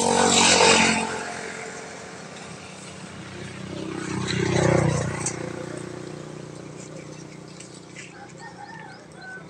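A passing vehicle's engine swells to its loudest about four to five seconds in and then fades away, after a loud rush of noise right at the start.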